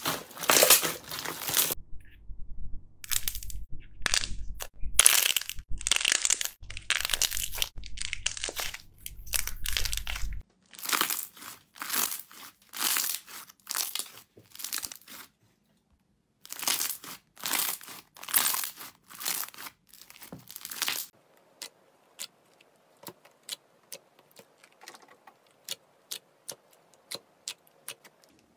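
Hands squeezing, stretching and pressing slime: repeated sticky crackling squelches, each a second or less, with short gaps between. A low hum sits under the first third, and the last quarter holds only faint scattered clicks.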